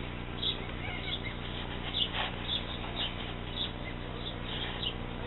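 Honeybees humming steadily in an open hive, with small birds chirping repeatedly.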